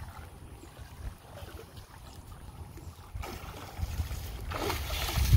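Water sloshing and splashing as people wade through a pond, getting louder about three seconds in, over a low rumble.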